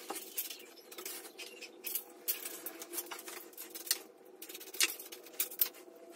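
Hand work on a motorcycle frame: irregular small clicks, taps and clinks of bolts, nuts and spacers being handled and fitted.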